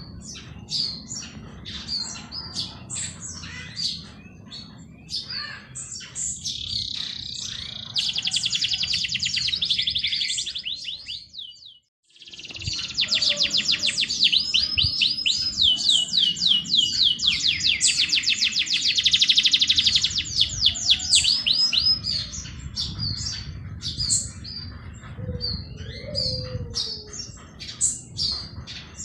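Several songbirds chirping and singing, with long, very fast trills of rapidly repeated high notes about a third of the way in and again through the middle, over a low steady rumble. The sound drops out briefly just before the second trill.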